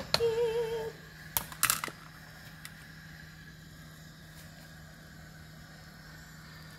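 Metal tongs clinking against a pan a few times in quick succession, about a second and a half in, as creamy pasta is stirred; after that only a steady low hum remains.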